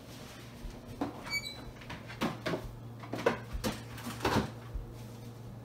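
Refrigerator door opened and a mixing bowl handled into the fridge: a series of irregular knocks and thumps, with a short squeak a little over a second in and a steady low hum underneath.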